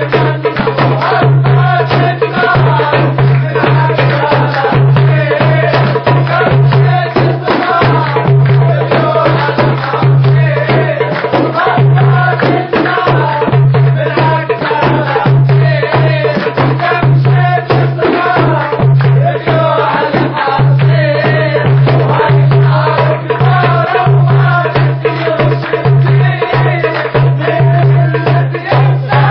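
Dabke wedding music: a fast, dense drum beat with hand clapping, and a wavering melody over a steady low drone.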